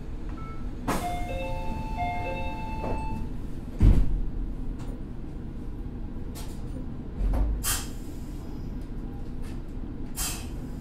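Meitetsu 6000 series train at a platform: a short chime of a few notes about a second in, then the doors shut with a loud thump about four seconds in, after the 'doors closing' announcement. A fainter low thump and two brief noises follow, over a steady low rumble.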